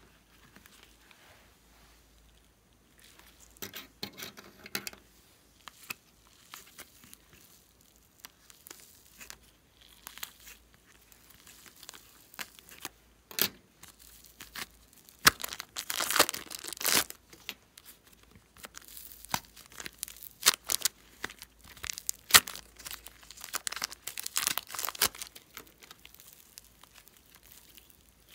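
Plastic piping bags crinkling and tearing as hands handle them and peel them open, in irregular bursts of crackling that are busiest in the second half.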